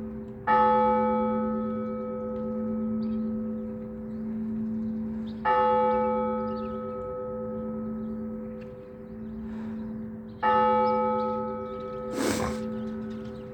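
Church bell tolling for a service: a single bell struck three times, about five seconds apart, each stroke ringing on with a long decay and a steady hum between strokes.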